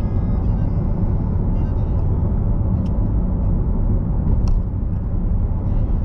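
Road and engine noise of a car driving at highway speed, heard inside the cabin: a steady low rumble, with two brief faint clicks about three and four and a half seconds in.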